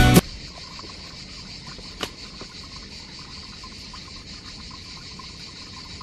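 Insects chirring steadily in the summer woods, a continuous high-pitched drone, with a single short click about two seconds in. Background music cuts off at the very start.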